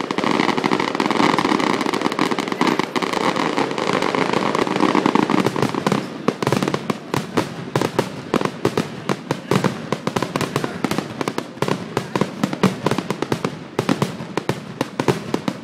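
Fireworks finale: a dense, continuous barrage of crackling and bursts, turning about six seconds in into rapid-fire sharp bangs, several a second.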